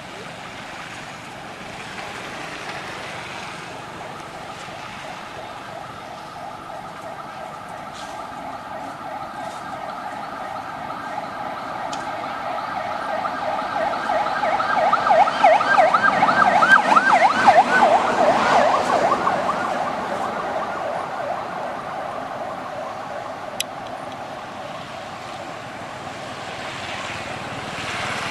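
A siren with a fast rising-and-falling warble, several times a second, that grows louder to a peak around the middle and then fades away, over a steady background hiss.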